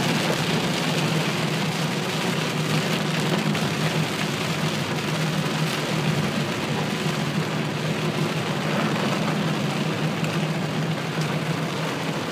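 Heavy rain beating on a car, heard from inside the cabin over the steady drone of the car driving on a wet road.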